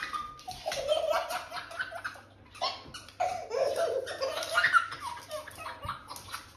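People laughing in several bouts, with short breaks between them.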